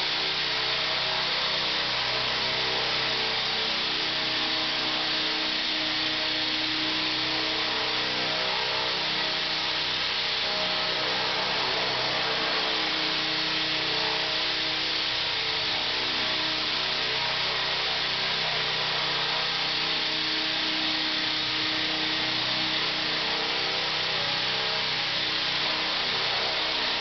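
ESky Belt-CP electric RC helicopter hovering: a steady whine of its electric motor and gears under the whir of the rotor blades, holding an even pitch throughout.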